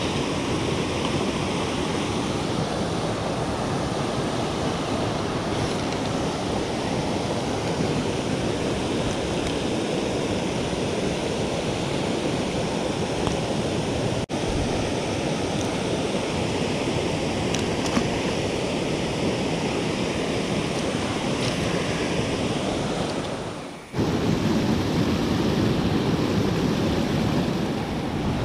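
Steady rushing water from a low rock cascade, a continuous hiss-like roar, briefly cut off about halfway through. About three-quarters of the way through it fades out and gives way to louder rushing water from river rapids.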